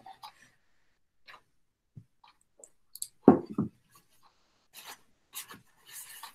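Soft handling noises: crumpled paper crinkling and rustling on a tabletop in short bursts among small clicks, with one louder thump about three seconds in.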